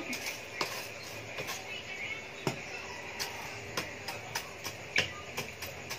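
Burning charcoal in a small stove crackling, with sharp irregular pops about once or twice a second.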